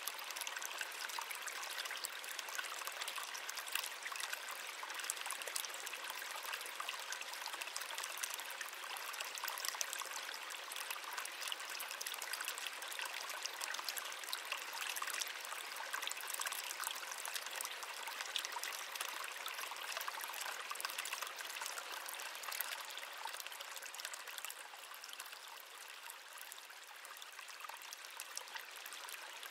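Small stream running and trickling steadily, a light splashing and babbling with little low rumble; slightly quieter near the end.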